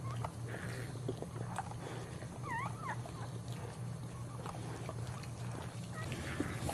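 A newborn Boxer puppy squeaking in short, high, thin calls, two rising-and-falling squeaks a little over two seconds in, while the mother licks it with soft wet ticks. A steady low hum runs underneath.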